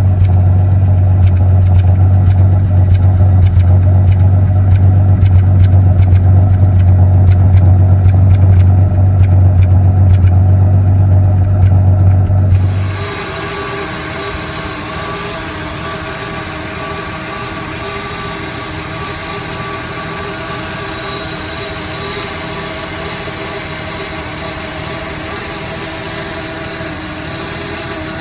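1974 Dodge Dart engine running with a misfire. For about the first half a loud low drone with faint regular ticks dominates; then the sound drops suddenly to a quieter engine sound with many steady tones for the rest.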